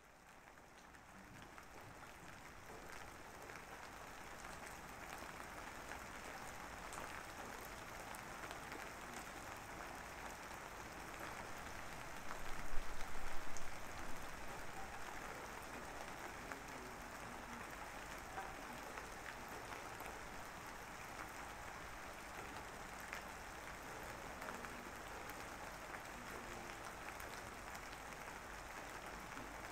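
Steady rain-like hiss that fades in over the first few seconds, with a louder patch about twelve seconds in.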